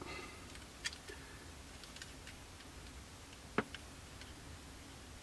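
A few faint clicks and taps from a plastic model-kit fuselage being handled and turned over in the hands, the sharpest about three and a half seconds in, over low room hum.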